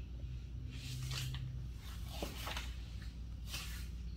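A few brief soft rustling scuffs over a steady low hum.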